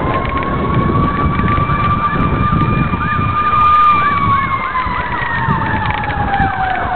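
Emergency vehicle sirens: a steady wailing tone that drops in pitch after about four seconds, with a faster yelping siren sweeping up and down over it in the middle, over a low rumble.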